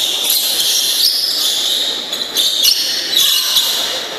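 Badminton doubles play on an indoor court: shoes squeaking and scuffing on the court floor, with the odd shuttlecock hit. The sounds come as a run of short, high squeaks and scrapes that start and stop several times.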